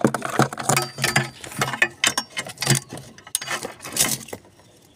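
Irregular metallic clicks and rattles from hand tools and seat-bracket hardware being worked into place, some of them ratchet-like.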